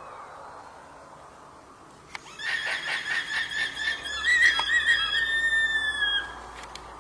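Alpaca giving a high-pitched call about two seconds in: a quick run of pulsed squeals that draws out into a held, wavering tone, stopping about six seconds in.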